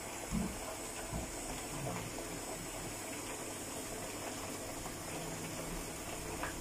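A small electric pump running steadily and circulating liquid through hoses into a water heater, giving a continuous watery noise. A soft thump comes about half a second in.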